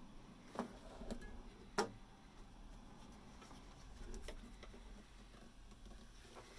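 Faint clicks and taps over quiet room tone, with two sharper taps in the first two seconds and a soft rustle about four seconds in.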